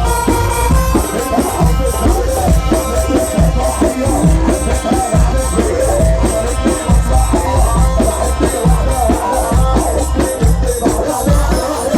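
Loud Egyptian mahraganat wedding music: a heavy, pulsing electronic bass beat under a wavering synth melody, with no vocals transcribed.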